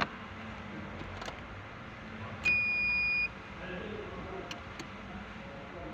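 A car's dashboard warning beeper sounding one steady electronic beep of just under a second as the ignition is switched on and the warning lamps light, with a few faint clicks around it.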